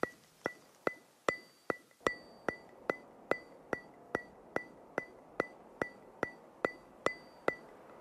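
Truck's turn-signal indicator ticking steadily in the cab: evenly spaced sharp clicks, a little over two a second, each with a short light ring.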